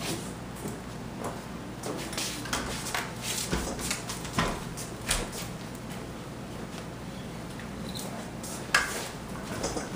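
Scattered knocks, clunks and rattles of a heavy steel gun safe being moved on a hand truck over floor protection, with one sharper knock near the end.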